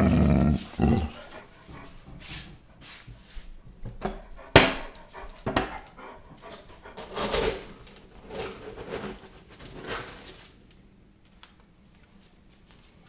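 A large dog vocalizing in short whines and grumbles, eager for its breakfast. Scattered clicks and knocks run through it, with a sharp knock about four and a half seconds in.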